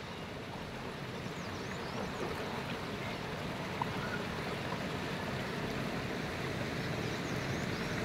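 Steady rushing of a rocky mountain stream: an even hiss of flowing water.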